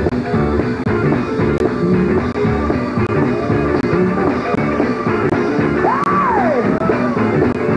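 Live gospel band music: electric guitar, bass and drums playing a driving groove. About six seconds in, a high note slides up and falls away.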